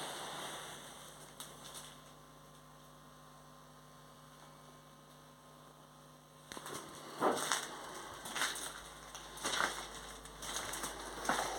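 Electric motor of a homemade lathe humming steadily. From about six and a half seconds in, irregular scraping strokes come over the hum.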